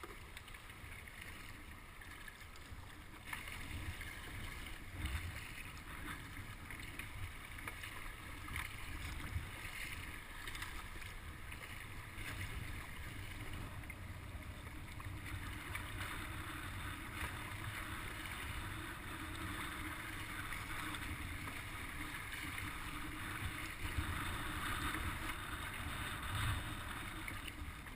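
Water splashing and lapping around a kayak as it moves, with wind rumbling on the microphone.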